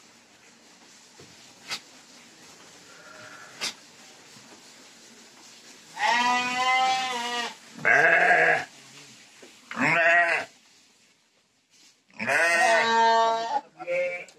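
Sheep bleating in a shed: about five loud, drawn-out bleats in the second half, after a few seconds of quiet with a few faint clicks.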